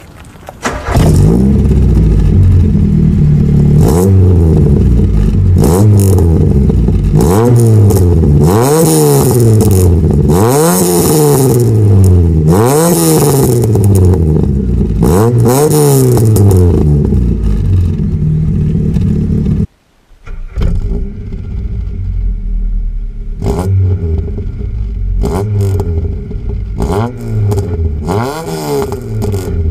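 VW Golf Mk1 Cabriolet's four-cylinder engine revved hard through a Magnaflow stainless-steel exhaust, heard at the tailpipe: a run of quick rev blips, each rising and falling in about a second. After a brief break near two-thirds through, quieter rev blips continue.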